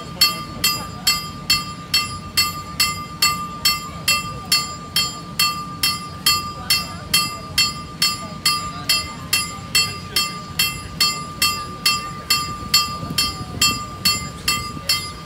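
Level-crossing warning bell striking steadily, about two strikes a second, each strike ringing on briefly.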